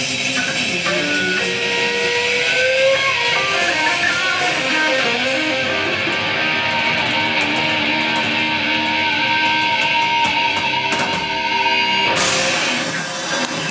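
Live rock band playing, an electric guitar leading with long held notes over the band.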